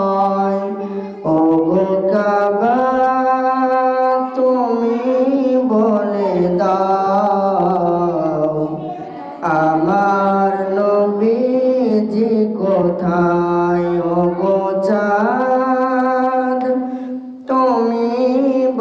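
Bengali Islamic devotional song (gojol) about the Prophet: a sung voice holding long notes that glide slowly up and down, in phrases of several seconds with short breaks.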